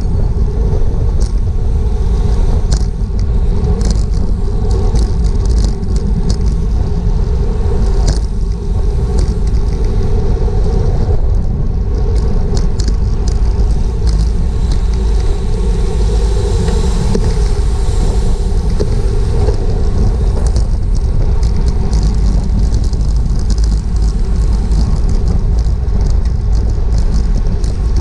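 Wind rushing over a GoPro's microphone on a bicycle at race speed: a steady, loud low rumble, with scattered light clicks.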